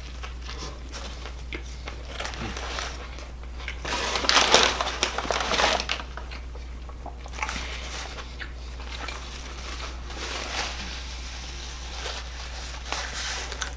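Fast-food paper wrapper crinkling and rustling while a person eats, loudest about four to six seconds in, with scattered small clicks and crackles, over a steady low electrical hum.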